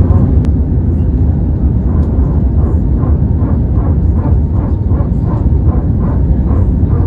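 Passenger jet cabin noise in flight: a steady, loud low rumble of engines and rushing air heard from inside the cabin.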